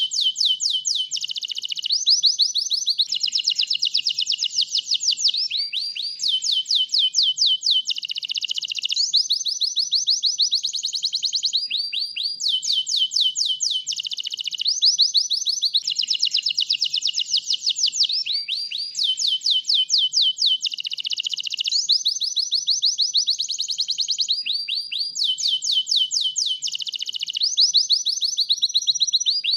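White domestic canary singing without pause: fast trills of repeated high notes, each run lasting about a second before it switches to a new one.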